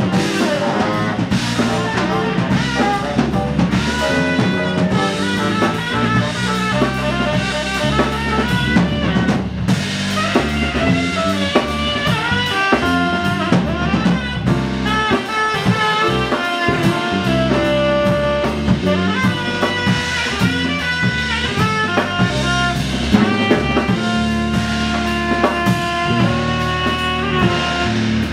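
Live jazz band playing a groove: saxophone lead over a drum kit with rimshots and kick drum, electric bass and keyboards.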